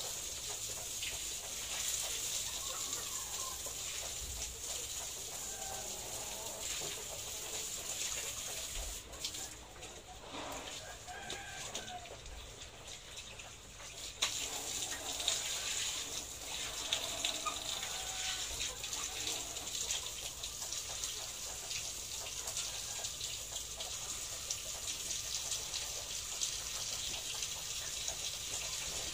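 Chickens clucking and calling on and off over a steady hiss of water running from a garden hose.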